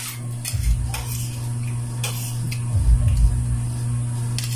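Metal spoons clicking and scraping on plates while eating: a few scattered light clicks and some dull low thumps over a steady low hum.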